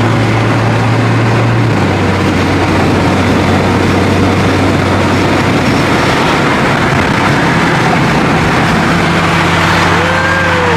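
Mini Cooper John Cooper Works engine and road noise heard from inside the cabin while driving. It is a steady drone whose pitch steps down about two seconds in, with a short rising-and-falling tone near the end.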